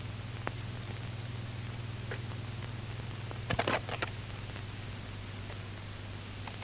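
Quiet film soundtrack: a steady low hum and faint hiss, with a few soft clicks or knocks, a short cluster of them about three and a half seconds in.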